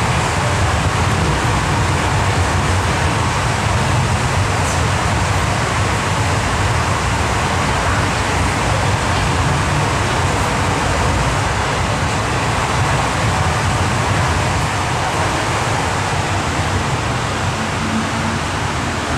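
MTR M-Train electric multiple unit running through an underground station without stopping, heard through the platform screen doors: a steady rumble and rush of wheels on rail that eases slightly near the end as the train clears the platform.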